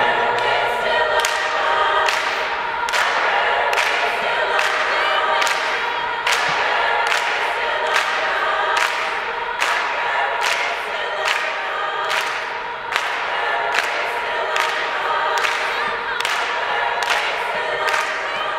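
Girls' choir singing in full voice, high voices only, over a sharp percussive beat about every 0.8 seconds; each beat rings on in the church's echo.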